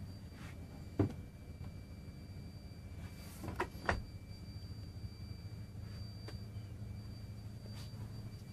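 The lid of a built-in cooler in a wood console knocks shut about a second in, and two more knocks follow close together a few seconds later, over a steady low hum.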